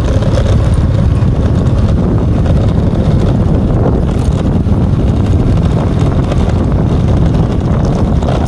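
Loud, steady rumble of wind buffeting the microphone, as when moving along an open road.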